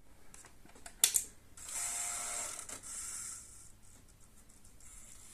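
A couple of sharp mechanical clicks, then about two seconds of a hissing whir from a small mechanism.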